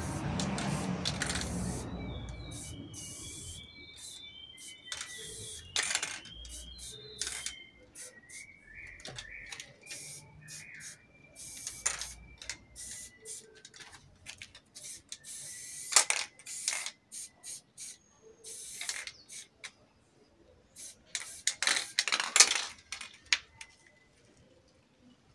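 Aerosol spray paint can hissing in short bursts against a wall, with sharp metallic clicks between them from the can's mixing ball rattling; the loudest bursts come about two-thirds of the way through and again near the end. Small birds chirp in the background for the first half.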